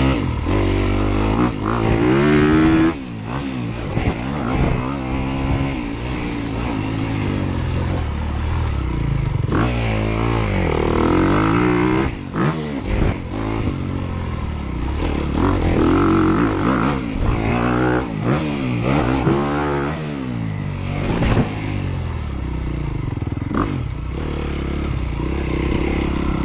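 Dirt bike engines revving hard and easing off again and again as riders work the motocross track. The pitch climbs and drops in repeated sweeps through gear changes, with the loudest bursts about two seconds in, around ten seconds and between fifteen and twenty seconds.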